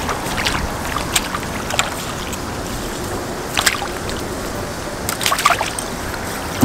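Water splashing and trickling with a few short, sharp knocks and clicks, as a hooked crucian carp is brought in and landed.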